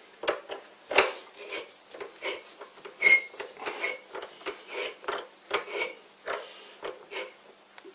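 Morse taper 2 machine reamer being turned by hand with a wrench inside a steel lathe tailstock quill, cutting the taper with oil: a string of uneven scraping and clicking strokes, two or three a second, with a short squeak about three seconds in.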